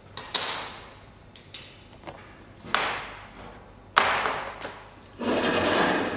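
Handling noises on a tabletop: five sudden knocks and scrapes about a second apart as small metal tools and a paper chart are moved, the last a longer scrape about five seconds in as a metal gauge is slid into place.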